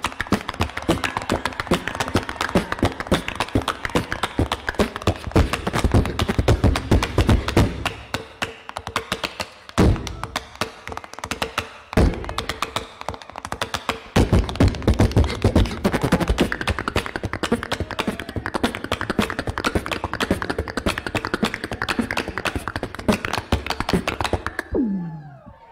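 Live beatboxing with quick clicks and deep thumps, over rapid tapping footwork from a dancer on a stage floor; near the end a falling vocal glide.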